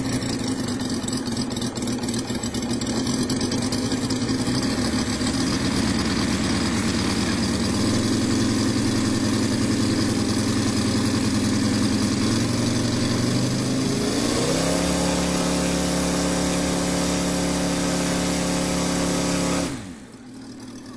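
Moki 215cc five-cylinder radial engine of a giant-scale model aeroplane running on the ground, held down for a run-up. It runs steadily, then rises in pitch about twelve seconds in, holds at the higher speed, and falls away abruptly near the end.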